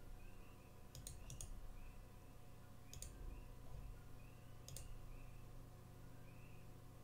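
A few sharp computer clicks: a quick cluster of three about a second in, then single clicks about two seconds apart. A faint steady electrical hum lies under them.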